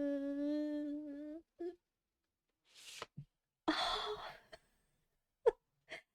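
A person's voice humming one steady held note for about a second and a half, followed by a couple of breathy exhalations and two faint clicks near the end.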